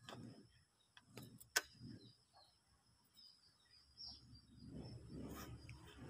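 Faint outdoor ambience with scattered short bird chirps over a faint steady high hiss, and one sharp click about a second and a half in. A low rumbling noise builds toward the end.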